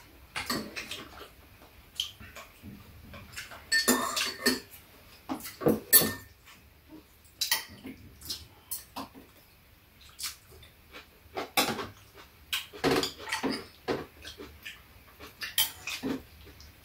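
Chopsticks and a metal spoon clinking and scraping irregularly against bowls, a plastic container and a metal serving tray as food is picked up, with the mouth sounds of eating in between.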